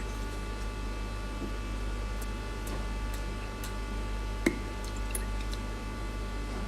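A person chewing food, with soft mouth sounds and a few faint clicks, one slightly louder about four and a half seconds in. A steady low electrical hum runs underneath.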